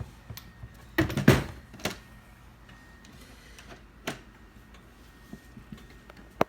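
Knocks and clatter from handling the wooden footstool and its screws: a cluster of clunks about a second in, then single sharp clicks in the middle and near the end.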